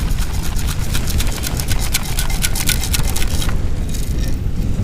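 Wind buffeting the microphone, with a rapid gritty rattle of sand and small stones being shaken in a beach sand scoop that stops about three and a half seconds in.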